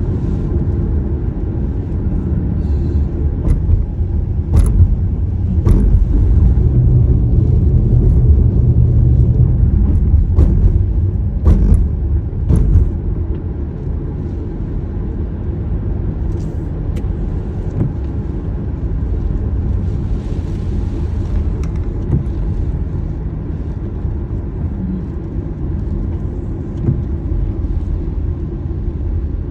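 Steady low rumble of a car on the road, louder from about six to thirteen seconds in, with a few sharp clicks along the way.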